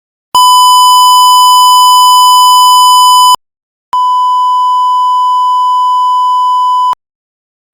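Two steady 1 kHz test tones, each about three seconds long with a short silent gap between them; the second is slightly quieter than the first.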